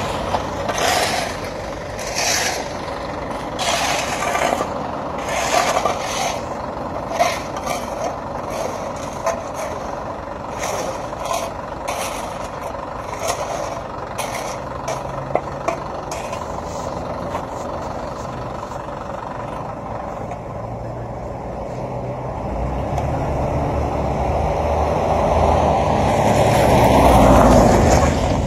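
Vehicle noise on a wet road, with a string of short sharp knocks and splashes over the first half. Near the end a rushing noise swells steadily louder.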